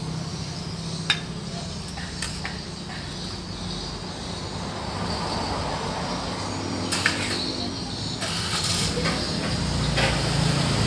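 Metal spatula scraping a steel wok and clinking against a ceramic plate as food is scooped out: a few sharp clicks and short scrapes over a steady low hum.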